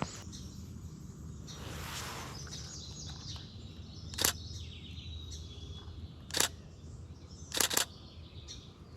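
Canon Rebel T7i DSLR shutter firing four times: single shots about four and six seconds in, then two in quick succession near the end. Faint bird chirps sound in the background.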